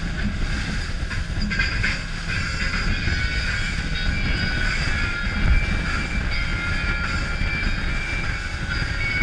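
Outboard-powered fishing boat running at speed over open water: a steady engine drone mixed with rushing water and wind.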